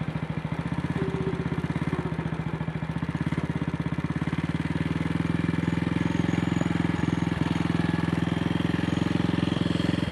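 AJS Model 8 single-cylinder motorcycle engine running under way, a steady rapid train of exhaust beats that gets slightly louder a few seconds in. The engine has developed a misfire and the throttle is sticking.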